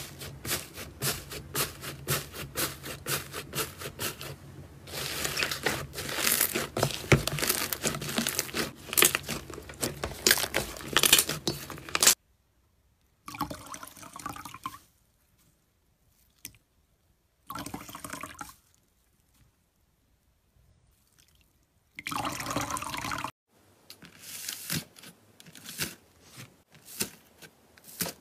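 Slime being squeezed and pressed by hand: wet, sticky squelching with many small popping clicks. It comes in a long stretch, then in several short bursts with silent gaps between.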